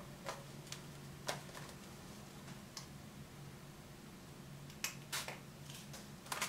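Faint, scattered taps and clicks of black paint being worked through a plastic dot stencil onto a journal page, a couple coming close together near the end, over a low steady hum.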